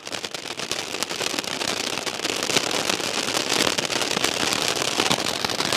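A 'twin ball' fancy firework crackling continuously: a dense, even patter of rapid tiny pops and fizz.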